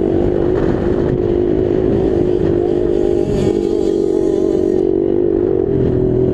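Motocross bike engine running hard at steady high revs, heard from the rider's helmet, with a brief dip in revs about three seconds in.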